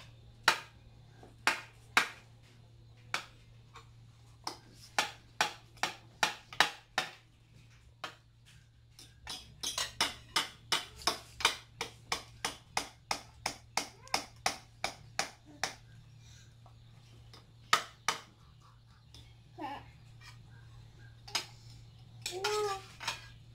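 Metal cutlery tapping and clinking against ceramic bowls: a long run of sharp clicks, two or three a second, thinning out in the last few seconds. A toddler's voice comes in briefly near the end.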